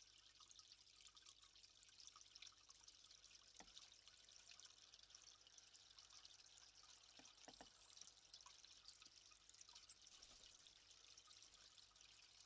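Near silence with a faint, steady trickle of running water and a few soft knocks.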